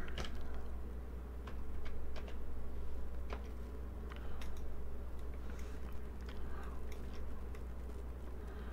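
Scattered light clicks of a computer mouse, irregular and a second or so apart, over a steady low hum.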